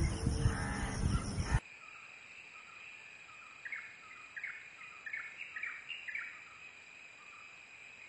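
A bird gives a quick series of about seven short calls over a steady, high insect drone. Before that, a louder stretch of sound cuts off abruptly about a second and a half in.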